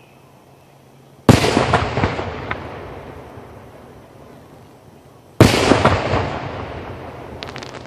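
Two aerial firework shells bursting about four seconds apart, each a sudden loud boom that rolls and echoes away over a couple of seconds, with a few faint crackles near the end.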